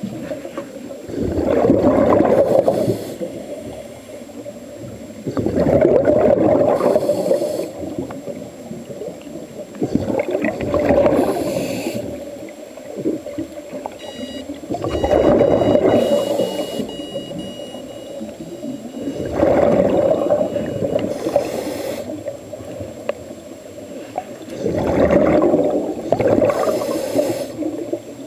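Scuba diver breathing through a regulator underwater: six loud bubbling exhalations a few seconds apart, alternating with short hissing inhalations.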